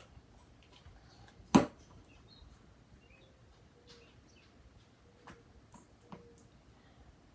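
A quiet room with one sharp knock about a second and a half in, then a few fainter clicks and brief faint chirps.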